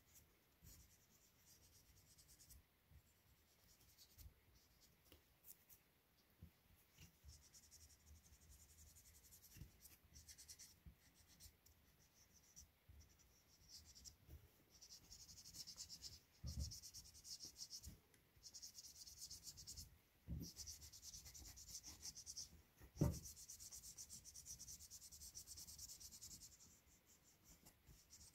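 Faint scratchy rubbing in runs of quick strokes as a small green pad is worked over a reindeer antler and stacked birch bark knife handle, thicker in the second half. A few soft knocks break in, the loudest about three quarters of the way through.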